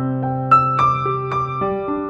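Slow, gentle piano music: single melody notes struck every half second or so over a held low note, which changes about one and a half seconds in.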